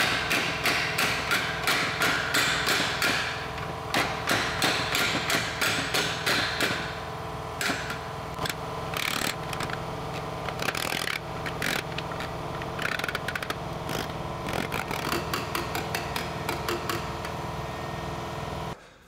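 Hammer taps on sheet metal, several a second for the first seven seconds and then more scattered, as the warped edge of the welded ammo can is worked back into shape. A steady hum runs underneath and cuts off just before the end.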